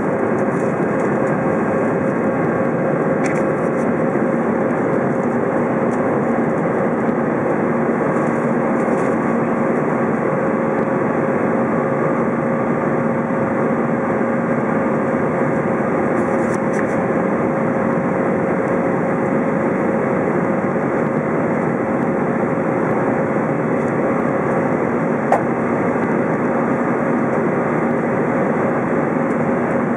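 Cabin noise of an Airbus A319 in the climb after takeoff: its jet engines and the airflow make a steady rushing sound with a steady drone underneath. A faint click comes about 25 seconds in.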